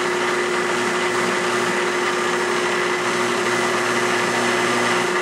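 Drill press motor running steadily with a chamfer tool turning in the chuck, a constant hum with a few steady tones.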